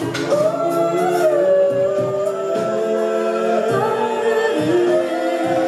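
A mixed-voice a cappella group singing in close harmony through a PA, holding layered chords that shift every second or so over a steady low rhythmic pulse.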